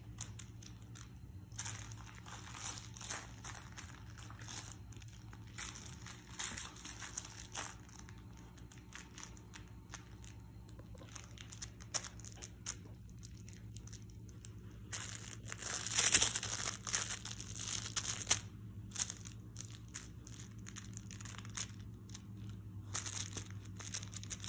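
Weimaraner puppy chewing and gnawing a plush duck toy: irregular crinkling and crunching of the toy in his mouth, densest and loudest about two-thirds of the way through, over a steady low hum.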